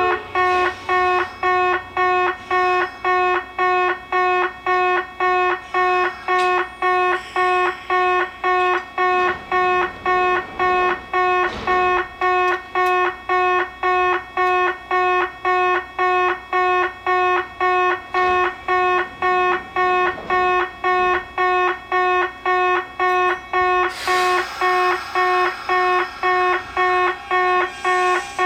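Electronic warning bell of a Kintetsu in-station level crossing, ringing in an even ding-ding about twice a second. About 24 seconds in, a rushing train noise rises under it.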